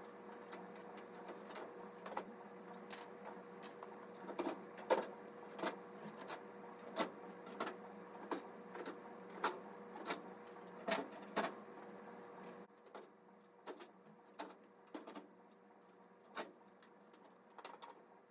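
Repeated sharp metallic clicks from hand-tool work on the equipment panel's screws, about one every 0.7 s and thinning out after about 12 s, over a faint steady hum.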